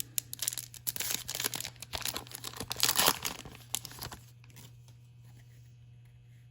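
Trading-card pack wrapper crinkling and tearing as it is opened, loudest about three seconds in and stopping about a second later. A low steady hum remains under it.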